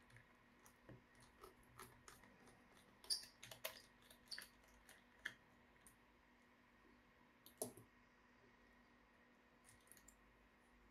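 Faint, scattered clicks and taps of laptop parts and a small tool being handled during disassembly. They cluster a few seconds in, with one sharper click a little later.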